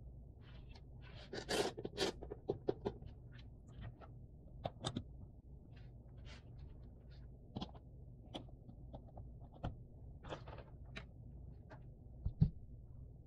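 Jigsaw puzzle pieces being handled by hand: scattered light clicks and short scrapes of pieces sliding and tapping on the table, with a flurry of scraping a couple of seconds in and a soft knock near the end.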